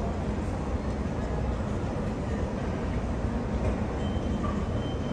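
Steady low rumble of an underground metro station's ambience, with a faint thin high tone for about a second near the end.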